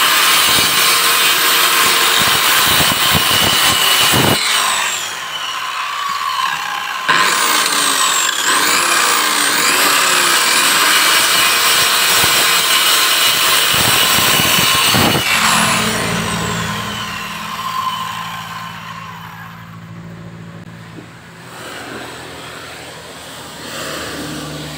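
Handheld electric circular saw cutting slots into a hardwood block, its blade running loud and steady, with a brief dip in level about four seconds in. About fifteen seconds in the saw is switched off and winds down, leaving a much quieter sound.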